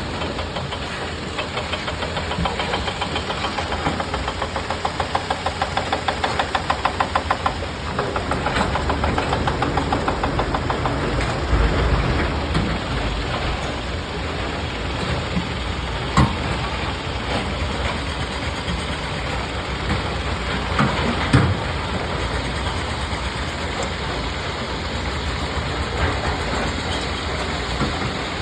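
Excavator diesel engine running steadily, with an even pulsing for several seconds near the start and a few sharp metallic knocks in the second half.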